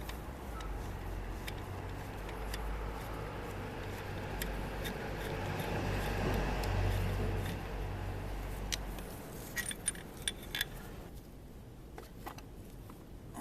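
Hex key working bolts loose on a motorcycle engine's alternator cover. There is a steady rubbing, scraping noise with a low rumble, loudest about two-thirds of the way through. Several light metallic clinks follow near the end.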